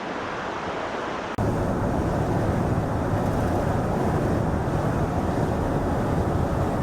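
Rushing water of the Niagara River rapids and whirlpool, a steady wash of noise with wind on the microphone. About a second and a half in it jumps suddenly louder and deeper.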